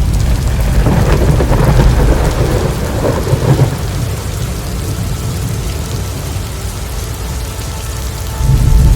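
Thunderstorm: heavy rain falling with a low rumble of thunder, swelling in the first few seconds and again near the end.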